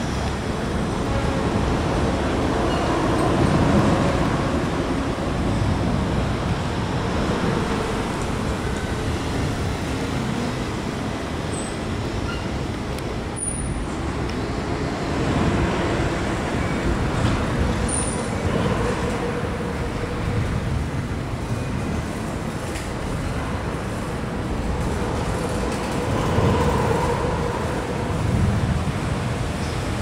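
Steady city road traffic noise, with vehicles swelling past every several seconds.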